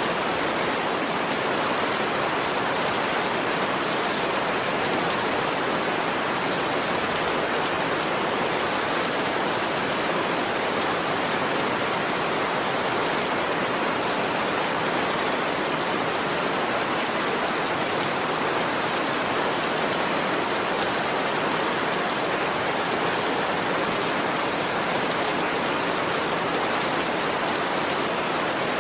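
Heavy rain falling steadily, an even downpour with no letup.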